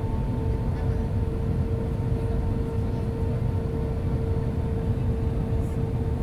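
Steady cabin noise inside an Airbus A320 with IAE V2500 engines: a low rumble of engine and airflow with a constant hum on one steady pitch above it.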